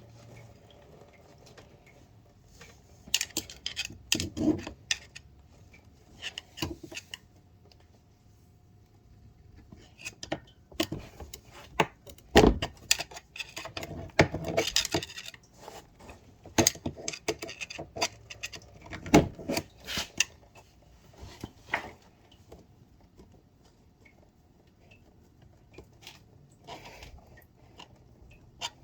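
Metal hand tools clinking, tapping and scraping against metal in irregular bursts, with a few louder clanks, as a screwdriver works a radiator hose and its clamp off an ATV engine.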